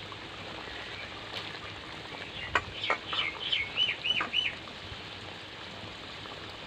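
Prawn and coconut-milk curry bubbling at a rolling boil in a wide pan. In the middle, a bird chirps a quick run of short notes.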